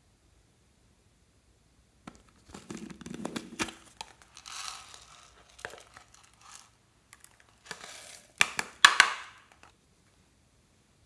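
A plastic jar being opened, then small confetti sprinkles rattling and pouring out of it into a hand and onto slime. It comes as irregular rustling with sharp clicks, and is loudest in a burst near the end.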